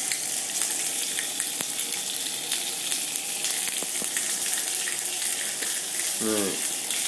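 Seasoned chicken pieces sizzling on a hot ridged griddle pan, a steady frying hiss with a few sharp ticks.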